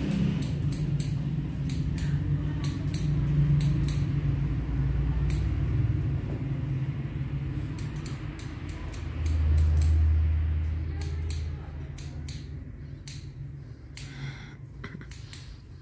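Barber's scissors snipping hair over a comb: short, crisp cuts, two or three a second, in an irregular rhythm. A steady low rumble runs underneath and swells for a couple of seconds about nine seconds in.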